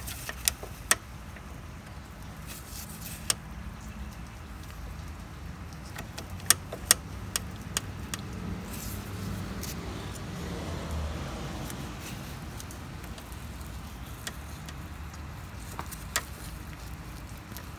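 A handful of sharp metallic clicks and taps as a transmission cooler line is worked by hand into its snap-in fitting on a GM 4T45-E transmission, over a low steady hum. The snug line will not seat easily.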